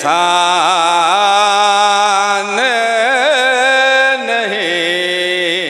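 A man chanting a line of devotional Urdu verse in long, drawn-out held notes with wavering ornaments, his voice amplified through a microphone.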